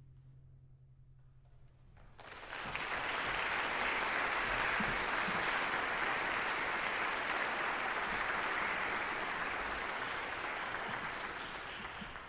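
Concert hall audience applauding, starting suddenly about two seconds in after a moment of near quiet and beginning to thin near the end.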